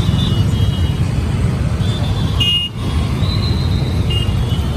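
Street traffic with a steady low rumble and several short, high-pitched horn toots, the loudest about halfway through.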